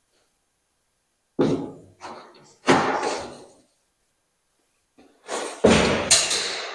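Metal knocks and clunks from a Rover SD1 body shell turning on a rotisserie jig. There are two separate heavy knocks in the first three seconds, then a longer clattering run of knocks near the end.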